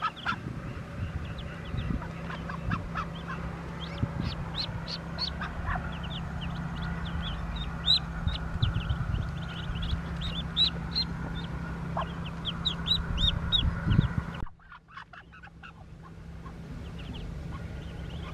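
Muscovy ducklings peeping in rapid, high chirps over a steady low rumble. About three-quarters of the way through the sound drops away suddenly, and the peeping returns fainter.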